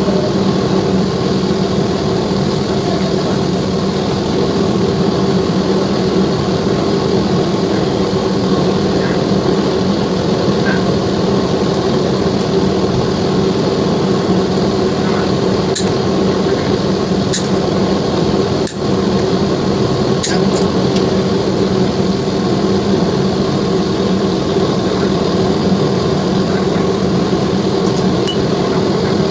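A loud, steady machine hum, like a motor or fan, with a few sharp clicks between about sixteen and twenty-one seconds in.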